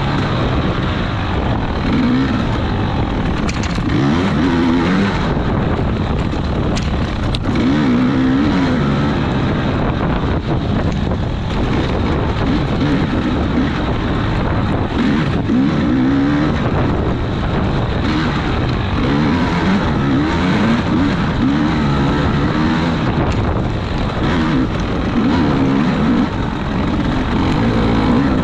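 Racing vehicle's engine running hard and revving up and down over and over, its pitch rising and falling every second or two.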